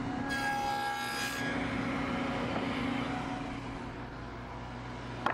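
Table saw running with a dado blade, cutting through a pine board for about a second near the start, then running on steadily. A sharp click comes right at the end.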